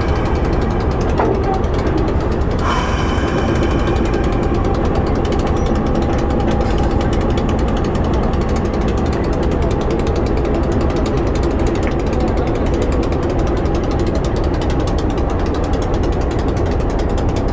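Diesel locomotive engine running at idle close by: a loud, steady, rapid mechanical clatter.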